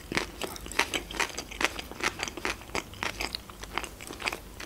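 Close-up chewing of a mouthful of sushi roll: wet, crunchy crackles about three times a second.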